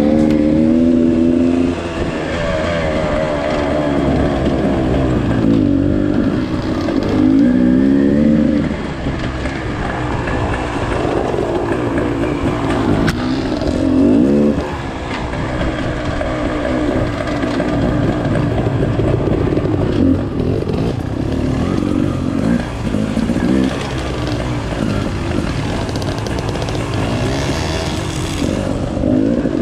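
Dirt bike engine heard from on the bike, revving up and easing off again and again, its pitch climbing in surges every few seconds.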